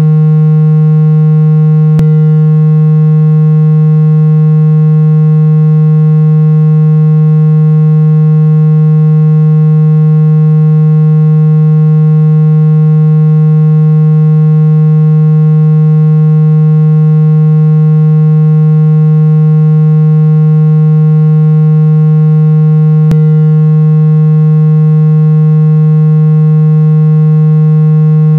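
Synthesized water-eject tone for clearing water from a phone speaker: a loud, steady low tone with many overtones, held without a break. Two faint clicks come about two seconds in and again about twenty-three seconds in.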